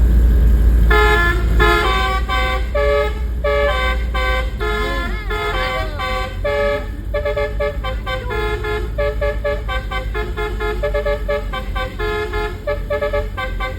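Basuri V4 telolet horn, a multi-note air horn fitted to buses, playing a quick melody of short, rapidly changing notes from about a second in. An engine runs underneath.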